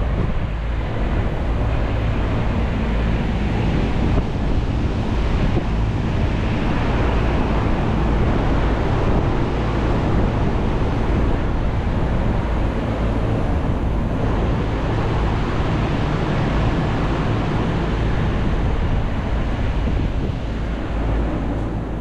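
Outdoor heat pump units running: a steady rush of fan air with a low hum underneath.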